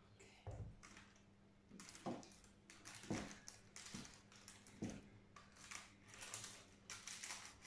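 Soft, irregular scrapes and dabs of a spatula working sticky whipped nougat mass, scraped from a steel bowl and then spread in a paper-lined baking pan, about once or twice a second.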